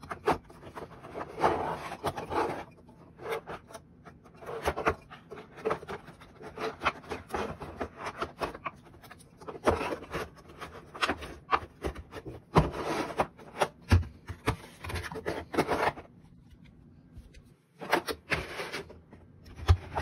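CPU tower cooler being wrestled out of its black molded plastic packaging tray: irregular rubbing, scraping and knocking of plastic against the cooler and the table, in bursts with short pauses.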